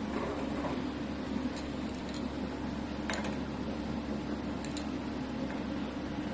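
A steady low hum in a kitchen, with a few faint clicks and clinks of utensils scattered through.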